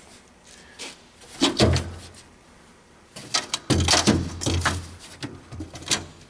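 Knocks and clatter of hand tools being handled in a metal toolbox, in two bursts: a short one about a second and a half in, and a longer run of rattling from about four to six seconds in.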